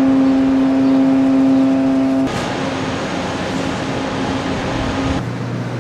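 Steady mechanical hum of running machinery that changes abruptly twice: first to a noisier hiss about two seconds in, then to a lower hum near the end.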